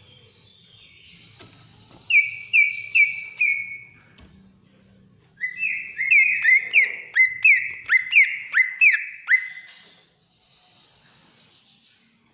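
Cucak ijo (greater green leafbird) singing in shrill, whistled notes that each slide down in pitch: a quick run of four about two seconds in, then a longer run of about a dozen from around five to nine seconds.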